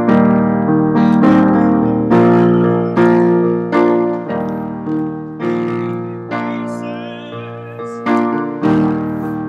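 Piano playing slow, sustained chords, a new chord struck about once a second and left to ring and fade.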